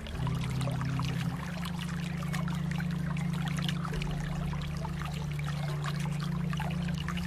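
Water trickling and splashing in a steady flow, with many small droplet splashes. Underneath runs a low steady drone that changes pitch right at the start and again near the end.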